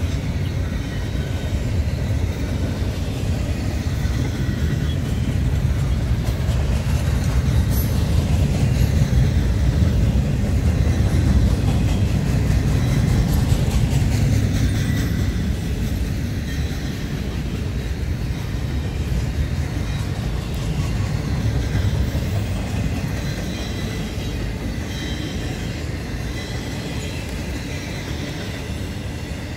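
Double-stack intermodal freight train's well cars rolling past: a steady rumble of steel wheels on rail with faint high-pitched squeals, loudest about halfway through and slowly fading toward the end.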